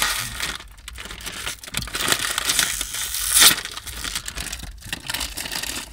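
Foil-lined Doritos chip bag crinkling and tearing as it is bitten open, with the loudest crackle about three and a half seconds in.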